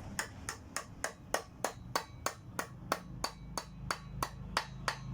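Ratcheting hand tool clicking steadily, about three clicks a second, as the bolts holding the Kärcher K5 pressure washer's pump cover are driven in.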